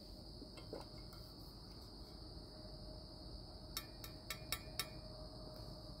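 Crickets trilling steadily in a high, even band, with a few faint clicks about two-thirds of the way through.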